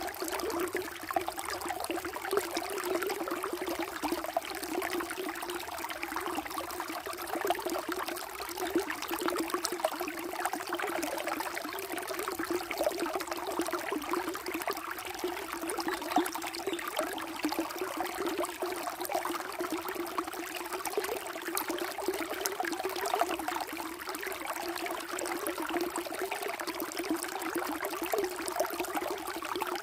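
Flowing water trickling steadily, with no let-up or change.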